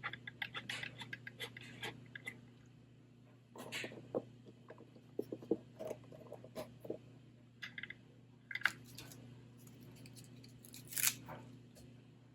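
Crafting supplies being handled and put away on a desk: irregular clicks, crackles and rustles of plastic and paper, with a quick run of small ticks at the start and a few louder crinkles later, over a steady low hum.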